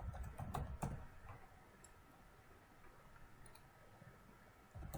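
Several quick, sharp clicks of a computer mouse and keyboard in the first second and a half, then faint room noise, with another click at the very end.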